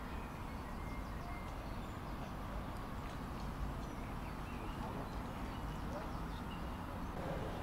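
Outdoor ambience: birds chirping here and there over a steady low rumble.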